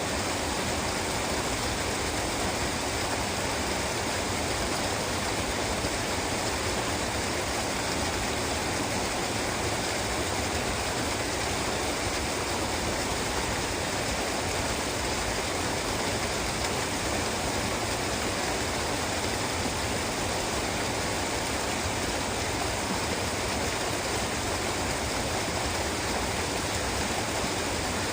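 Waterfall: water falling and rushing in a steady, even roar that does not change.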